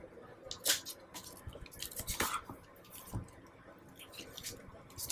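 Hands handling a cardboard iPad box and lifting the film-wrapped tablet out of it: a few scattered taps and rustles, the sharpest about two-thirds of a second in and again about two seconds in.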